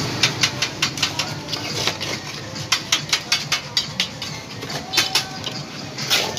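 Steel mason's trowel clinking and scraping against hollow concrete blocks while mortar is spread along the top of the wall: a run of sharp clinks, several a second, easing off near the end.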